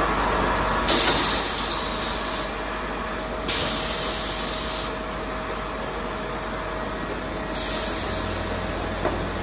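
Shrink-wrap packing machine running with a steady mechanical hum. Three sudden bursts of hissing air come about a second in, three and a half seconds in and seven and a half seconds in, the first two each lasting a little over a second.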